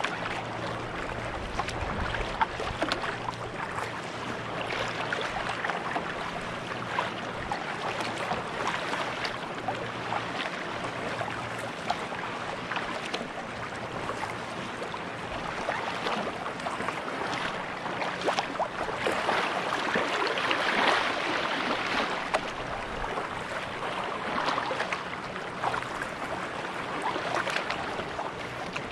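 Kayak paddle strokes: the blades dip and splash, and water drips and trickles along a sea kayak's hull in a continuous stream of small splashes. A low steady hum runs through the first half.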